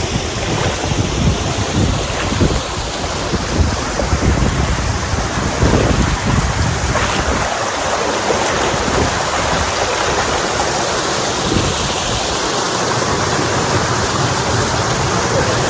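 Wind buffeting the microphone over moving water: a steady rushing noise with an uneven low rumble.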